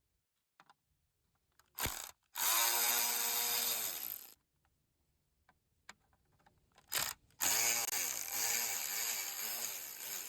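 Cordless drill-driver with a T15 Torx bit backing out trim-panel screws: two runs of the motor, about two and three seconds long, its pitch rising and falling as the trigger is eased, each with a short click just before it.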